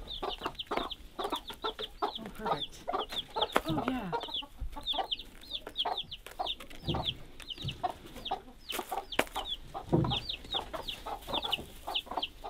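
Young chicks peeping steadily, many short high peeps a second, with a mother hen clucking low among them.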